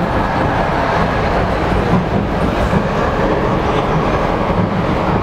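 Running noise inside a passenger car of an ET2M electric multiple unit travelling at speed: a steady, loud rumble of wheels on rail and car body.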